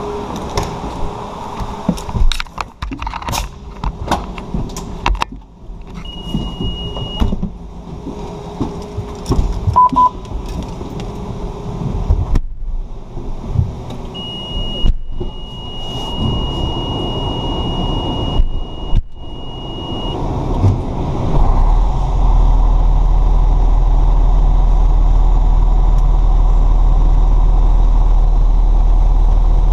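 Clicks and knocks of gear and doors as the crew climbs into a fire truck's cab, with a high steady beep sounding on and off for several seconds. About twenty seconds in, the truck's diesel engine starts and then runs at a loud, steady idle.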